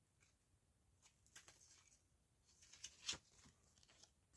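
Near silence, with a few faint rustles and taps from a folded paper CD booklet being handled and unfolded; the loudest is a short tap about three seconds in.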